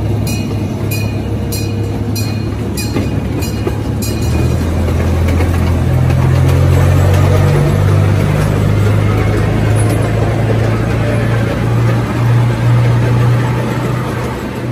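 A vehicle's engine running with a steady low hum that shifts in pitch a few times and grows louder partway through. Sharp ticks, about two a second, sound over it for the first four seconds.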